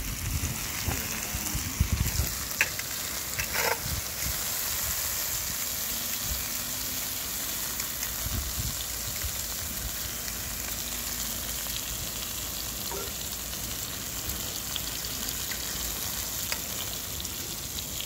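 Vegetables sizzling in oil in a cast-iron skillet over a campfire, a steady frying hiss. A few light knocks and clicks sound in the first few seconds.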